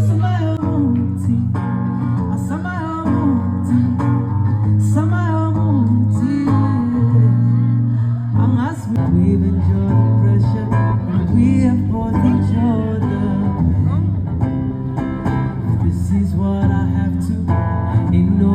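Music: a voice singing over acoustic guitar.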